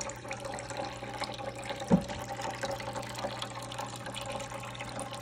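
PetSafe Drinkwell 2-gallon pet fountain running: a stream of water trickles and splashes from the spout into the filled basin over a steady low hum. A single knock about two seconds in.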